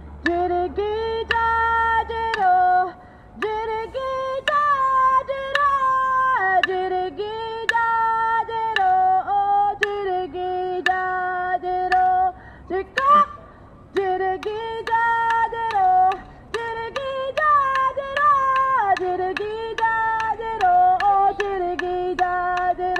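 Traditional Aboriginal song: one voice holding long notes that step down in pitch, with a few short breaks, over a steady beat of sharp clicks.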